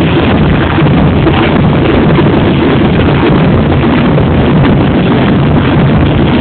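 Loud, dense crowd noise from a throng of football supporters, steady throughout with no single voice or event standing out.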